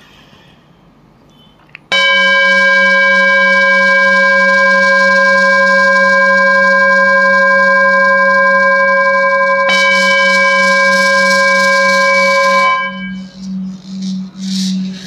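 Bell tone struck about two seconds in, ringing steadily with several clear overtones above a low hum, and struck again about ten seconds in. Near the end the high overtones die away and the low tone wobbles in slow pulses.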